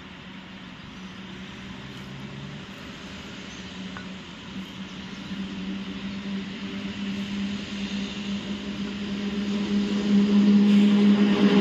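ET22 electric locomotive approaching with a steady hum that grows louder, joined near the end by the hiss of its wheels on the rails.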